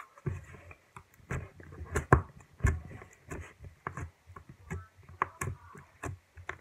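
Homemade slime being stretched and squeezed by hand, giving off irregular sharp clicks and small pops, about three or four a second.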